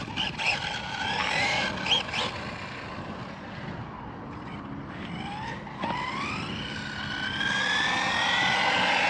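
Brushless electric motor of a 2WD RC buggy whining as it is throttled, its pitch climbing steadily over the last few seconds as the buggy speeds up, over the rattle of tyres on dirt, with a short knock about six seconds in.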